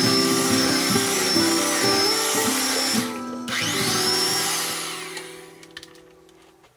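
Electric hand mixer running in thick batter, with a high motor whine that wavers. It stops for a moment about halfway, spins back up with a rising whine, then fades out and stops near the end, over background music.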